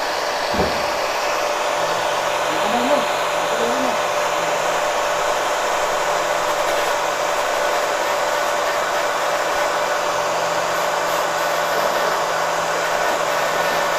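Electric angle grinder running steadily with a constant motor whine, its disc grinding down a metal brake caliper bracket.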